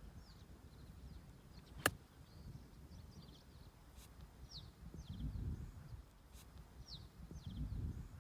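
A single sharp crack of a golf club striking the ball about two seconds in, with small birds chirping repeatedly and two low rumbles later on.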